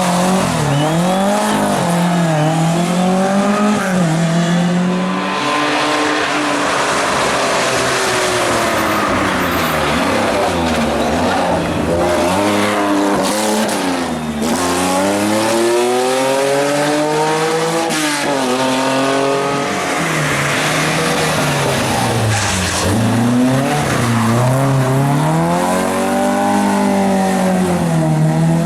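A rally car engine run hard through a stage. Its pitch climbs and drops again and again as the car accelerates, shifts and brakes for corners, with deep drops several times.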